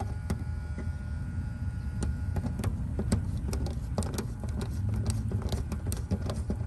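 Irregular metal clicks and ticks of a driver working the screw terminals on an air-conditioner contactor as they are tightened, over a steady low rumble.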